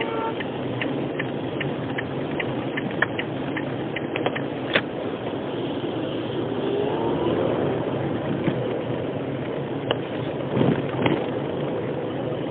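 Car cabin noise while driving in rain: a steady engine and road noise, with scattered sharp ticks of raindrops hitting the windshield.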